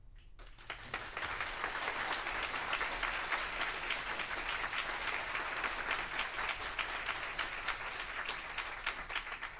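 Audience applauding at the end of a number. The clapping starts about half a second in, builds quickly and holds steady, then thins out near the end.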